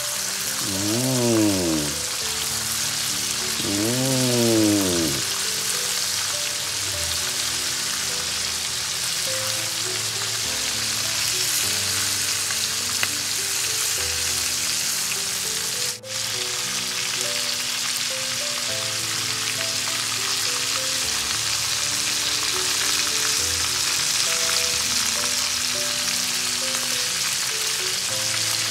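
Flour-coated oysters deep-frying in hot oil, a steady crackling sizzle, under background music. Two arching rise-and-fall tones sound in the first few seconds, and the sound briefly cuts out about halfway through.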